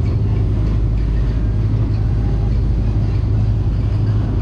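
Fishing boat's engine running steadily under way, a low, even drone.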